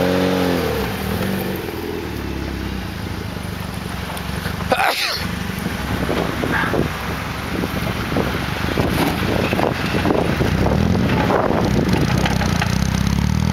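Fiat Panda 4x4's engine running at low revs as the car crawls past close by, the revs easing in the first second, then a steady low engine note. A brief sharp noise about five seconds in.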